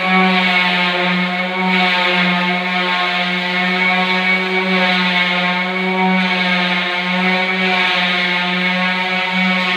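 Electric random orbital sander running with a steady hum. Its round pad rubs across an epoxy-resin-coated door panel, and the hiss of the sanding swells and fades as the sander is pushed back and forth.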